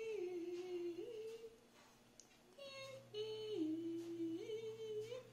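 A person humming a slow tune, holding long notes that step down and back up, with a short break about two seconds in.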